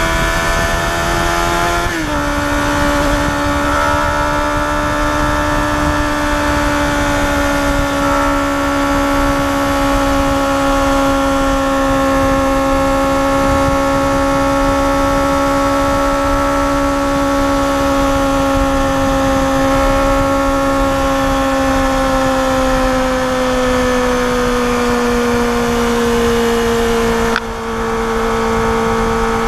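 Yamaha FZR250R's 250 cc inline-four engine running at high revs under way, with wind rush over the rider's seat. The engine note steps down slightly about two seconds in, then holds and slowly sinks in pitch, with a brief dip in loudness near the end.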